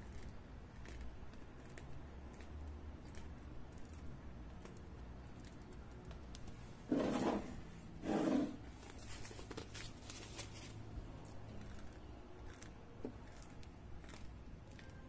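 Quiet handling sounds of meringue being piped from a cloth piping bag into small glasses, over a low hum. About seven and eight seconds in come two short, louder rustling scuffs as an arm reaches across close by.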